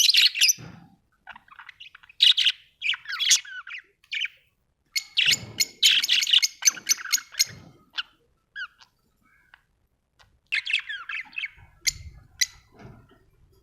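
Budgerigars chirping and warbling in bursts of rapid chatter, separated by short pauses, with a few faint low thumps.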